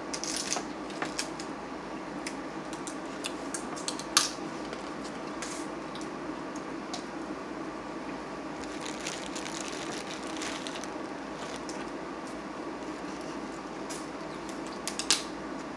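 Cooked blue crabs being picked apart by hand: small cracks and clicks of breaking shell and wet squishing of crab meat, with a sharp crack about four seconds in and another near the end, over a steady low hum.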